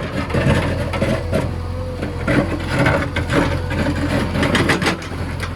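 JCB backhoe loader's diesel engine running steadily under irregular scraping and knocking from the machine at work.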